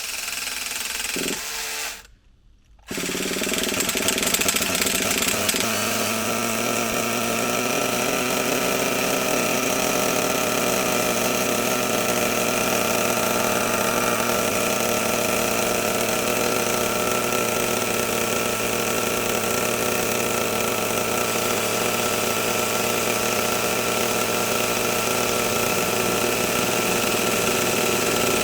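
An electric starter whirs for about two seconds, then after a short break a model nitro engine on the RC truck runs steadily at idle.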